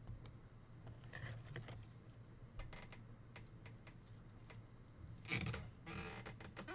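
Sports trading cards and pack wrappers being handled: faint clicks and rustles, with a louder rustle a little after five seconds in.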